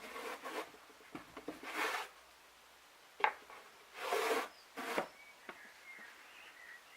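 Wooden toolbox being handled: short scratchy rubbing strokes on the wood, about 2 s and 4 s in, and a few sharp knocks of wood set down or bumped.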